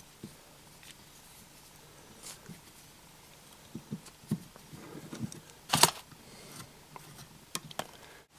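Adjustable spanners working on a brass tap as its top nut is loosened: scattered light clicks and knocks of tool against tap, the loudest a sharp knock about six seconds in.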